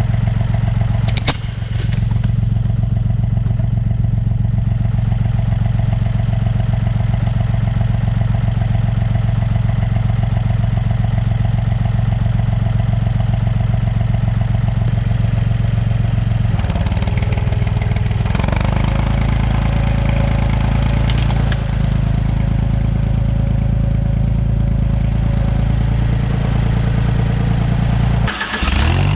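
Wood chipper's flat-four engine running steadily, its tone shifting abruptly about a second in, a little past halfway, and near the end.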